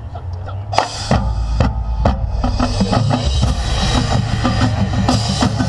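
Marching band percussion section playing: a loud crash about a second in, then snare and bass drums driving a dense rhythm that builds in volume.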